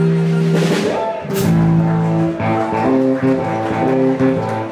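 Live band playing: electric and acoustic guitars over a drum kit, a held chord giving way to changing notes about a second in, with a cymbal crash about a second and a half in.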